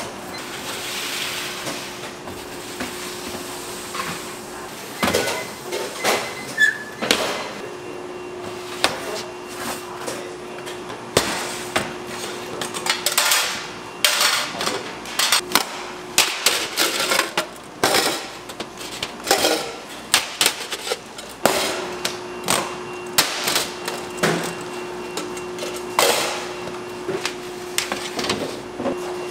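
Bakery work noise: irregular sharp knocks and clatter of tools and trays, some in quick clusters, over a steady machine hum.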